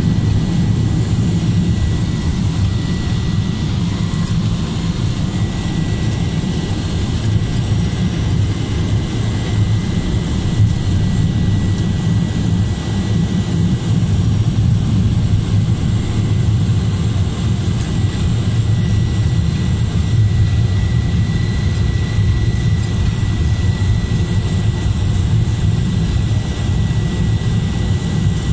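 Cessna Grand Caravan 208B's Pratt & Whitney PT6A turboprop and propeller, heard from inside the cabin while the plane rolls on the ground after landing. It is a steady, loud drone with a thin, steady high whine over it.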